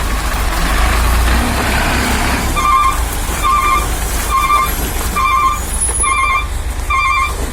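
Truck's reversing beeper sounding at a steady pace, about one beep every second, starting about two and a half seconds in, over a steady low engine rumble. Before the beeps starts, a loud hiss runs for about two seconds.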